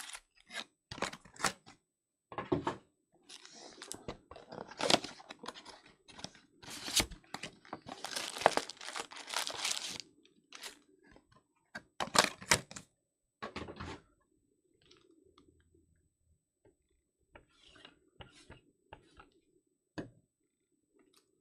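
Plastic wrapping on trading-card boxes and packs being torn open and crinkled, in quick sharp crackles with short pauses, sparser and fainter over the last several seconds.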